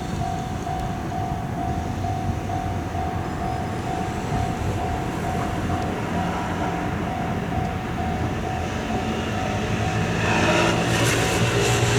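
Japanese level-crossing warning bell ringing in a steady, even repeating pattern, dropping away about seven seconds in. Near the end a train approaches, its rumble and motor hum growing louder.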